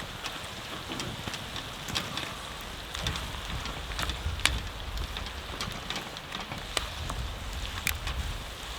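Large wood bonfire crackling, with a steady hiss and frequent sharp, irregular pops and snaps, over a low rumble.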